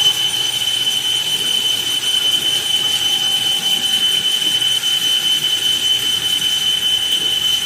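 A 40 mm drill bit cutting into X12 tool steel on a machine tool: a steady high-pitched whine over the machine's running noise.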